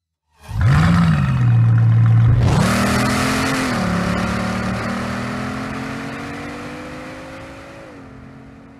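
Bugatti Chiron's 8.0-litre quad-turbocharged W16 engine firing up with a rev that settles briefly. About two seconds later it accelerates hard through the gears, its pitch climbing and dropping at each of three upshifts as the sound fades away.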